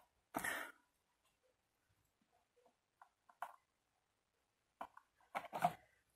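Faint, intermittent handling noises of a cardstock handle strap being fitted onto a paper bag: a short burst of noise about half a second in, a few light ticks around the middle, and a cluster of louder rustles near the end.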